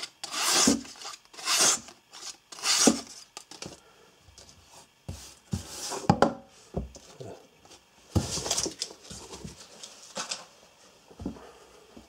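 Böker Plus Uolcos folding knife slicing strips off a sheet of paper in a sharpness test of its edge. Three quick cuts come about a second apart, then quieter handling of the knife and paper, and a couple more cuts come later.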